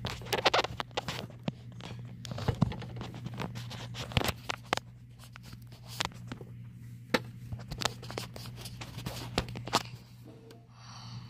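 Irregular clicks and taps of small plastic dollhouse pieces and a toy figure being handled and set down, over a steady low hum.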